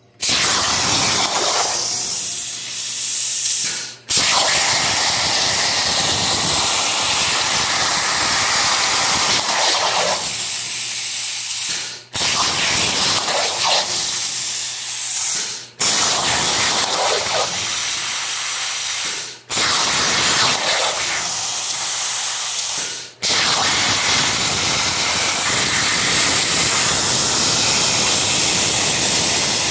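Langmuir Systems Crossfire XR CNC plasma table cutting steel plate: the plasma torch's loud, steady hiss, broken by five brief gaps.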